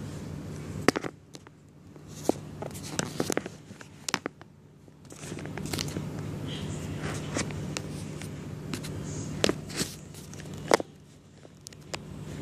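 Scattered knocks, taps and rustling as things are handled and set up on a desk, over a steady low hum.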